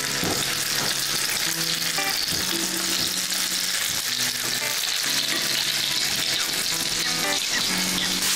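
Crumbed garfish fillets pan-frying skin side down in hot oil in a frying pan, a steady sizzle throughout.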